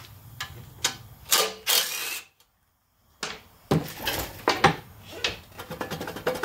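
Metal clicks and knocks of tools and loosened cylinder-head bolts on a small Honda GX390 engine, with a brief burst from a cordless impact driver about a second and a half in. The sound cuts out for about a second in the middle.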